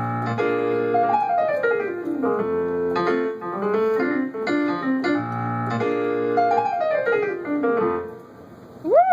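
Piano playing the song's closing phrase: chords with a quick descending run, heard twice, before the playing ends about eight seconds in. Right at the end comes a loud rising whoop.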